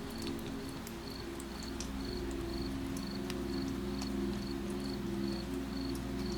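A cricket chirping steadily, about two short high chirps a second, over soft rain with scattered drip clicks. Low sustained tones of an ambient music pad hold underneath.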